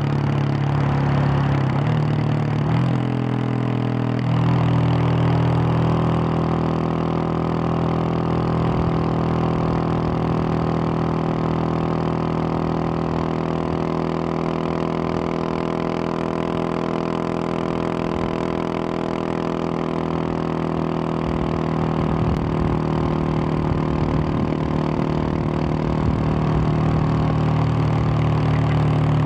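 2021 Husqvarna 701 supermoto's single-cylinder engine running through a Wings aftermarket exhaust, cruising at road speed on steady throttle. The engine note steps a couple of times in the first few seconds, then holds steady, and grows a little louder near the end.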